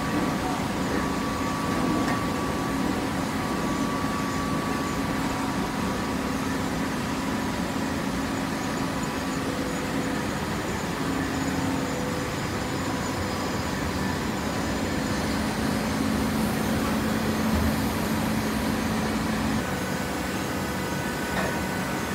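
Automatic horizontal baling press for shredded paper and its feed system running: a steady machine hum with several droning tones that shift slightly in strength, and no sudden knocks.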